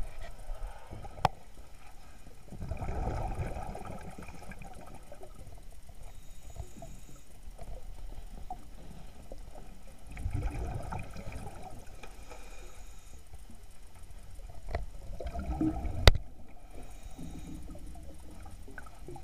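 Scuba diver's exhaled bubbles rumbling and gurgling out of the regulator, heard underwater through the camera housing, in three swells several seconds apart with each breath out. A sharp click, the loudest moment, comes near the end, with a fainter one about a second in.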